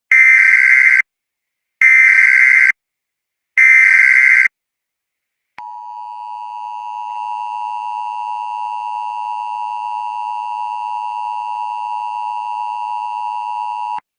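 Emergency Alert System tones: three one-second bursts of warbling SAME header data, then the steady two-tone EAS attention signal. The attention tone starts about five and a half seconds in, holds for about eight seconds and cuts off abruptly.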